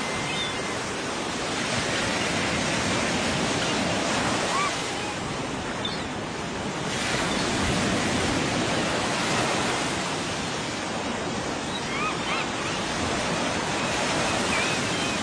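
Steady rushing noise of surf and wind, easing slightly about six seconds in before coming back up, with faint short high chirps near the end.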